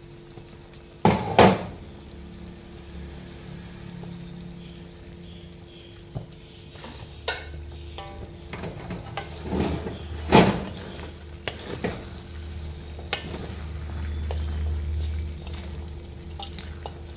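Spicy chicken feet sizzling in an aluminium wok while a wooden spatula stirs and scrapes them through the thick sauce, with scattered clicks and two louder knocks, about a second in and about ten seconds in.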